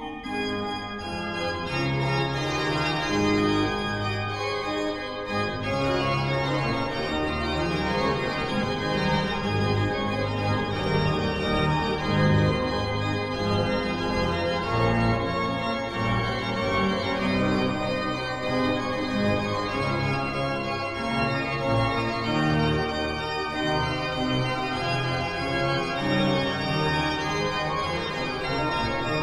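Organ music: a slow piece of sustained chords over a bass line of long held notes, at a steady loudness.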